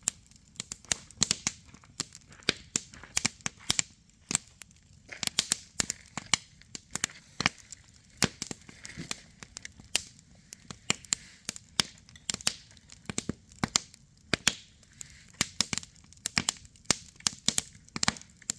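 Wood campfire crackling and popping, with sharp irregular snaps several times a second over a soft low hiss of burning.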